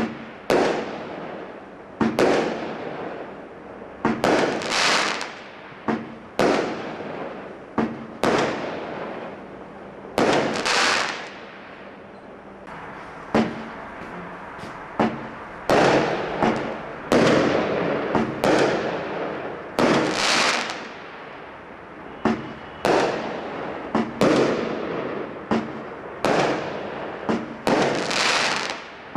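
Consumer barrage fireworks going off in a steady string of bangs, one every second or two. Each bang trails off in a hiss that fades over about a second.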